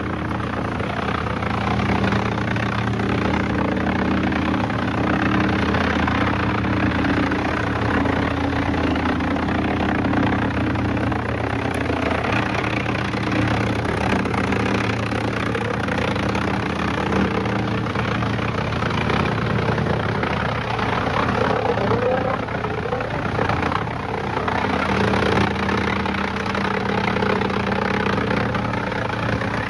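Heavy engine-driven machinery running steadily: a low engine hum with a dense, continuous rushing noise over it.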